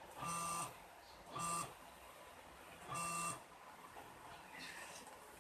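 Electronic beeper sounding three separate beeps, the middle one shorter than the other two.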